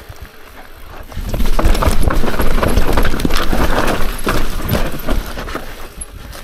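Mountain bike descending a steep, rocky trail: tyres crunching over rock and dirt while the bike clatters over the bumps in a rapid run of knocks. It gets much louder about a second in and eases off near the end.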